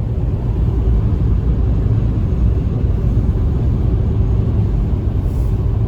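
Steady low road rumble of a car driving on winter roads, heard from inside the cabin: tyre and engine noise with no sharp events.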